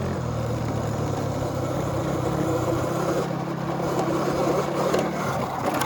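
Small motorbike engine, Carter's 110, running at a steady speed with a low hum, over wind and riding noise. The hum eases off about five seconds in.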